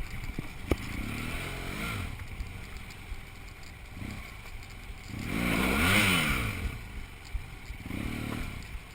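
Off-road motorcycle engine revving in several bursts while the bike is stuck, with one long rise and fall of pitch about six seconds in, the loudest rev, and shorter revs about two seconds in and near the end.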